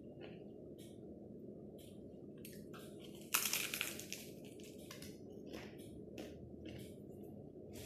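Crisp baked za'atar manoushe flatbread crunching and crackling in short bursts, loudest about three seconds in, over a steady low hum.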